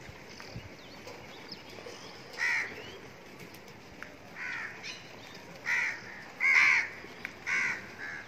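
Crows cawing in a flock, about six harsh caws spaced a second or so apart after a quiet opening couple of seconds, with the loudest one about two-thirds of the way through.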